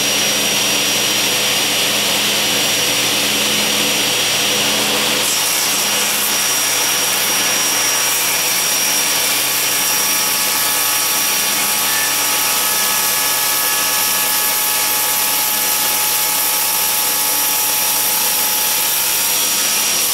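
Table saw with an 80-tooth Freud Diablo non-ferrous carbide blade cutting through a thick block of 6061 aluminum at a slow feed. The saw runs steadily, and the sound turns harsher and brighter about five seconds in as the blade bites into the metal, with several steady high tones as the cut continues.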